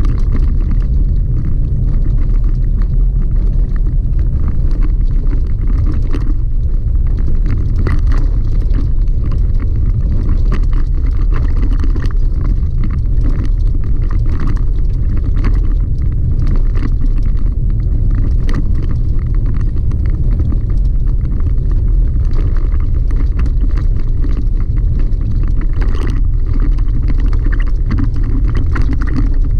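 Chevy Colorado ZR2 pickup driving on a gravel dirt road, heard from inside the cab: a steady low rumble of tyres and engine with frequent small clicks and rattles.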